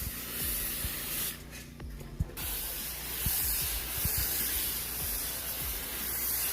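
Pressure washer wand spraying a downstreamed soap mix onto a pool deck as a steady hiss. About a second and a half in, the spray stops for about a second, then starts again, with a steady low hum underneath.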